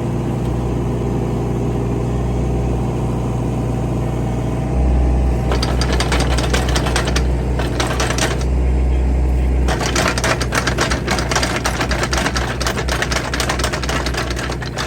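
A machine's engine running steadily. About five seconds in it works harder, and rapid clattering starts, broken by a short pause before it resumes.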